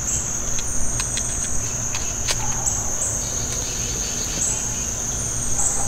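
Steady high-pitched chorus of singing insects, with a few faint clicks in the first couple of seconds.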